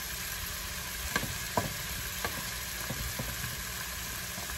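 Diced onion and bell pepper sizzling steadily in a hot pan, with a spatula stirring them and knocking lightly against the pan five or six times.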